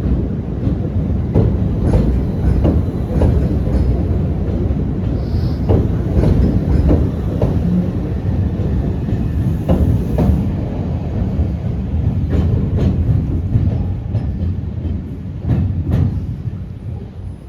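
Southern Class 377 electric multiple unit pulling out, a steady rumble with irregular clicks of wheels over rail joints and points, the sound falling away near the end.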